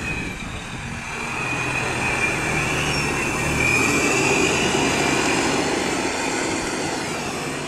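Heavy concrete mixer truck driving slowly past: a diesel engine rumble and road noise that swell to a peak about four seconds in, then ease off, with a thin high whine over the first half.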